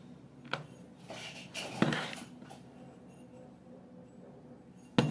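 Steel starter-motor housing handled on a wooden workbench: scraping and rustling with a few knocks, the loudest about two seconds in and another near the end.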